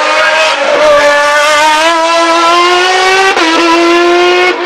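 Sports-prototype race car's engine at full throttle out of a hairpin, its pitch climbing steadily, with a brief dip about three seconds in before it climbs again.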